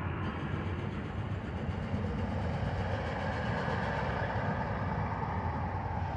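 A train of passenger coaches rumbling across a railway bridge overhead, a steady low rumble.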